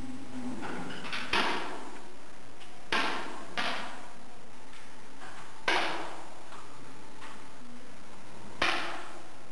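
Air rifle shots, five sharp reports at irregular intervals, each followed by a short echo from the hall.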